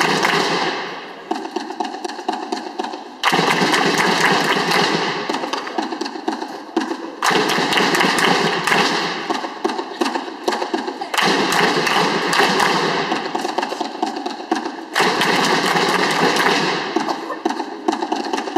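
A large group of drummers playing fast, dense drumming in a big sports hall. The playing comes in sections, each opening with a sudden loud attack about every four seconds.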